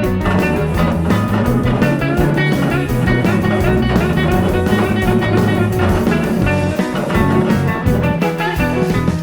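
Background music: a guitar-led rock track with drums.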